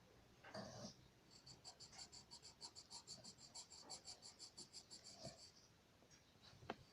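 Faint, rapid back-and-forth drawing strokes scratching on paper, about five a second, like shading, stopping about two thirds of the way in.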